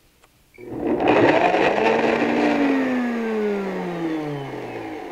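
Countertop blender starting up about half a second in and churning frozen banana chunks with water, then slowing down, its motor whine falling steadily in pitch and fading toward the end.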